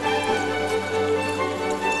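Background music: held notes over a steady low bass tone.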